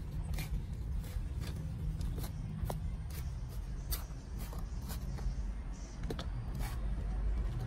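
A hand trowel digging and scraping into a heap of loose soil, a crunching stroke about twice a second, over a steady low rumble.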